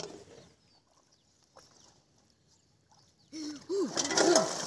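Mostly quiet at first, then about three seconds in, shallow water splashing and water-hyacinth leaves rustling as hands reach down into the plants. Short arched animal calls repeat over it every half second or so.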